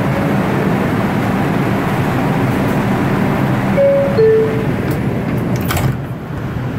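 Steady hum inside a New York City subway car on the 4 train. About four seconds in a two-note chime sounds, a higher note then a lower one: the door-closing signal. Shortly before six seconds the doors close with a brief knock.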